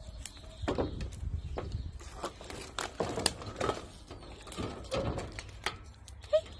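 Irregular scuffing, rustling and knocking of footsteps and movement in dry grass and grit as a dog is led on a rope lead, with a few brief squeaks among them.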